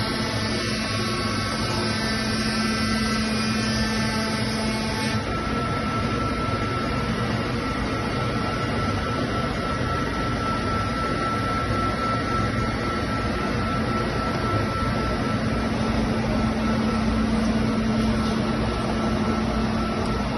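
EagleTec double-head CNC router running together with its dust extraction: a steady mechanical noise with a low hum, joined about five seconds in by a high steady whine.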